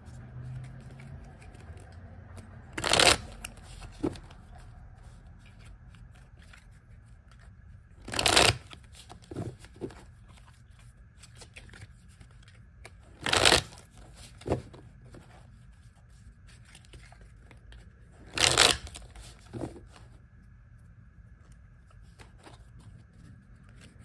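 Tarot deck being shuffled by hand: four short bursts of cards riffling about five seconds apart, each followed about a second later by a lighter tap.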